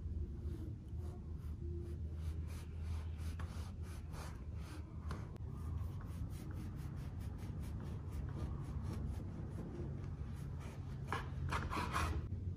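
Kitchen knife sawing through soft sandwich bread onto a bamboo cutting board: a run of short scratchy strokes as the blade rasps through the crust, louder in a quick cluster near the end. A low steady hum sits underneath.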